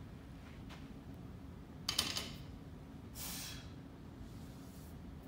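A short metallic clink and rattle from the loaded barbell about two seconds in, then a sharp breath out as the lifter rises from a single-leg deadlift.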